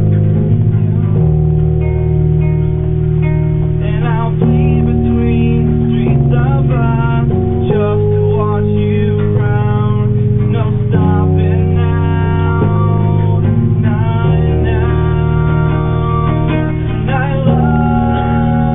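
Live rock band playing a song: guitars and bass guitar, with a singer.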